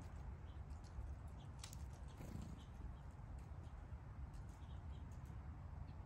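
Faint backyard ambience: a steady low rumble with scattered short, high chirps and ticks from small birds at a seed feeder, one sharper click a little under two seconds in.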